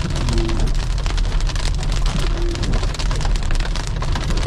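Hail pelting the car's windshield and roof, heard from inside the cabin as a dense, steady rattle of small hits over the low rumble of the car on the road.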